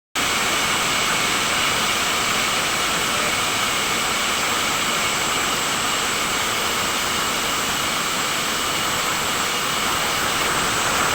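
Sawmill machinery running with a steady loud noise and a faint high whine.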